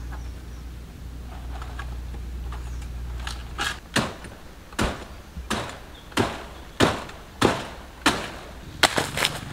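A blade chopping at the stalk of a palmyra palm fruit bunch up in the tree: about ten sharp chops, starting some three seconds in and coming roughly two-thirds of a second apart, with a quick flurry of three at the end.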